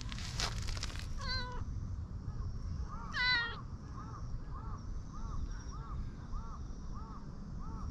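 Brown tabby-and-white cat meowing twice, the second meow louder, about three seconds in. Behind it a faint, even series of short notes, about two a second, over a low rumble of wind on the microphone.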